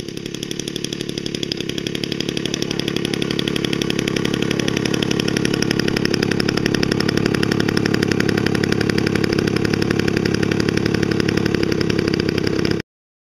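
Engine of a Top Flite P-40 Warhawk radio-control model plane idling as the plane taxis, a steady rapid pulsing that grows louder as it comes closer. It cuts off suddenly near the end.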